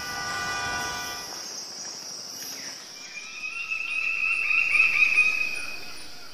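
Steady high insect chirring, like crickets. A held chord of tones sounds over it for about the first second, and a wavering higher tone rises to the loudest point between about three and six seconds in.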